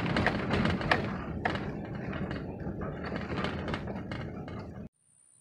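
Vehicle driving over a rough dirt track, heard from inside the cab: a steady low rumble of road and engine noise with sharp knocks and rattles, the loudest about a second in. The sound cuts off abruptly near the end.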